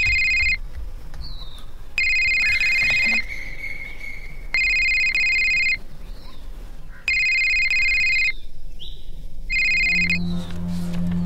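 Basic keypad mobile phone ringing: an electronic trilling ring tone in bursts of about a second, repeating every two and a half seconds. About ten seconds in, the last ring cuts off short and low music begins.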